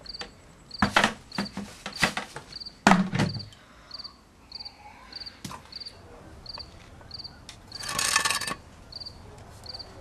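Crickets chirping in an even rhythm, a little under two chirps a second, under the clatter of household things being handled. Several sharp knocks sound in the first few seconds, the loudest a thud about three seconds in, and a short rattling scrape comes about eight seconds in.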